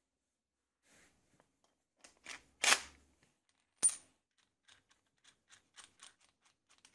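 Small metal parts handled against a plywood grinder wheel: a knock, then a sharp metallic clink that rings briefly, then a run of light ticks, about four a second, as a threaded bolt with a washer is turned through the wheel's bearing.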